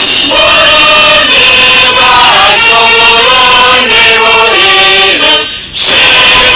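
A crowd singing an anthem together in unison, holding long notes and moving between them in steps. There is a brief break shortly before the end, then the singing picks up again.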